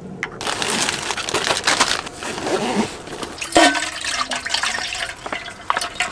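Liquid poured in a stream into a stainless steel container, then a sharp metallic clink with a brief ring about three and a half seconds in, followed by small handling clicks.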